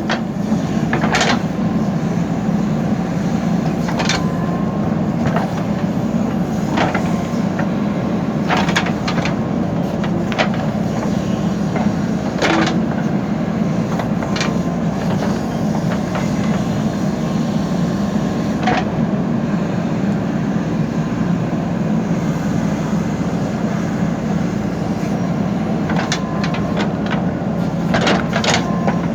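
Backhoe loader's diesel engine running steadily while it digs, with occasional sharp clanks scattered through.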